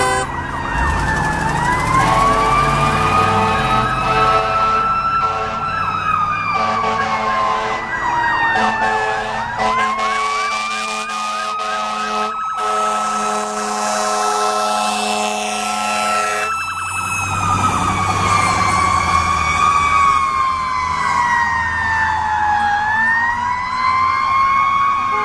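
Fire engine siren wailing slowly up and down, one rise and fall about every four seconds. For the first two thirds, repeated air-horn blasts sound over it, and a low engine rumble lies beneath it in the later part.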